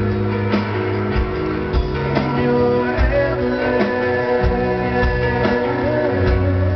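Live rock band music: guitars holding sustained chords, with irregular drum hits.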